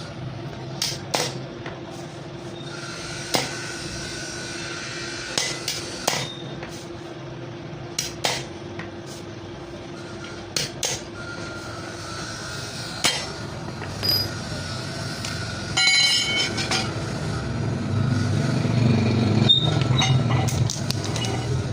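Hammer tapping on metal while new friction lining is fitted to a clutch plate: sharp knocks every couple of seconds, singly or in quick pairs, over a steady hum. A low rumble builds near the end.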